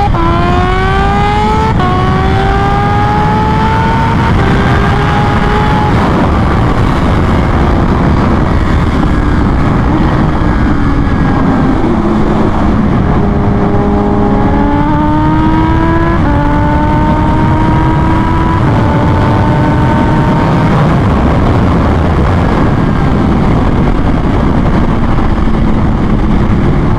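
Kawasaki Ninja H2's supercharged inline-four accelerating through the gears, over heavy wind rush. The engine pitch climbs and drops back at each upshift, about two, four and six seconds in. It falls away around twelve seconds in, then climbs again through further upshifts around fourteen, sixteen and nineteen seconds in.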